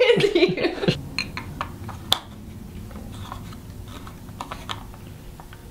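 A short sound falling in pitch in the first second, then faint scattered clicks and small knocks over a low room hum as hands work the controls of a LargeSense LS911 large-format digital camera. One click about two seconds in is sharper than the rest.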